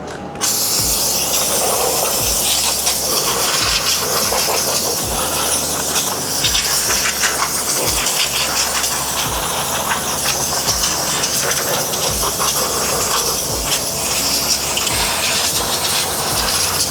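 Steam cleaner jet hissing steadily, switched on abruptly about half a second in.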